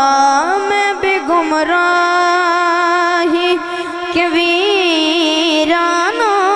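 A boy's solo voice singing a naat unaccompanied into a microphone, drawing out long held notes. A little past the middle it breaks into a fast wavering ornament, then settles on a held note again.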